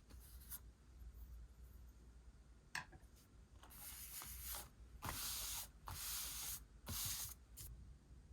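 Paper being rubbed and slid by hand on a journal page: a few light ticks, then four scratchy rubbing strokes of about a second or less each and a short one near the end.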